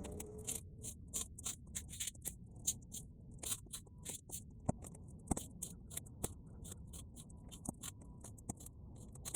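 Bonfire of half-dried weeds crackling: many quick sharp pops, several a second, over a low steady rumble.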